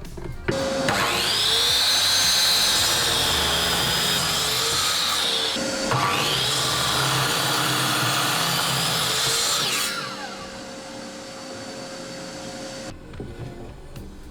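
Electric power tool motor spinning up to a high whine and running for about five seconds, dipping briefly, then running again for about four more seconds before winding down.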